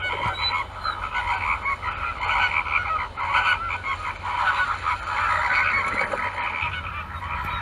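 A flock of flamingos calling: many overlapping, goose-like honks and gabbling calls at once, without a break.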